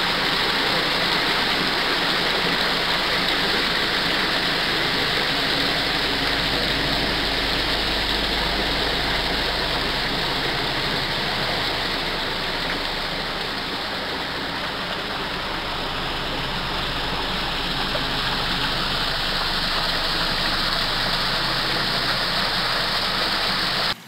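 Garden pond waterfall running steadily: a constant splashing of falling water.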